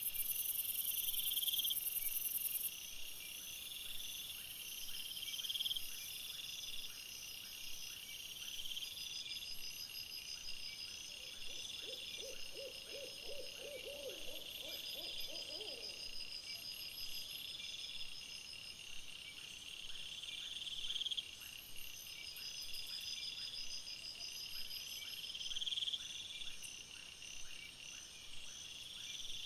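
Night insects, crickets, chirping in a steady high, pulsing chorus, with a quick run of about a dozen low hoots about halfway through.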